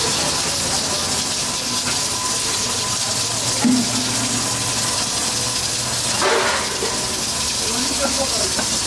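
Steady hiss of steam from a row of aluminium pressure cookers on gas burners.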